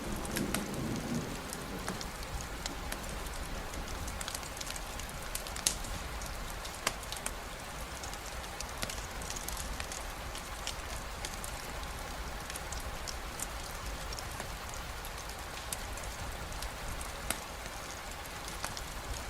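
Steady rain falling, with many scattered sharp ticks of drops striking. A low rumble of thunder fades away in the first second or so.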